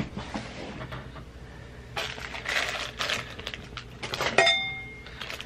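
Cardboard packaging being handled, with a stretch of rustling and tearing, likely a paper advent-calendar door being opened. Near the end a sharp click sets off a brief ringing ping, like a small hard object clinking.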